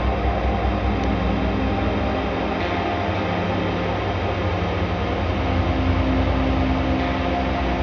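Ambient background music: a low, steady droning pad with held tones, its chord shifting about five seconds in.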